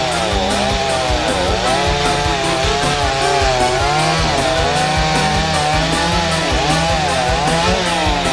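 Chainsaw running while cutting wood, its engine pitch dipping and rising again and again as the chain takes the load.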